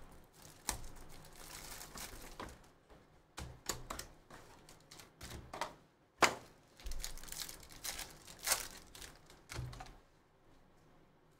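Plastic shrink wrap and a foil trading-card pack wrapper crinkling and tearing as a card box is unwrapped and a pack is ripped open, with scattered clicks and one sharp snap about six seconds in.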